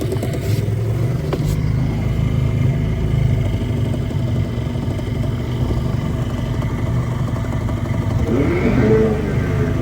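Small boat motor running steadily on the water, a low drone. Near the end a second engine note rises and falls in pitch.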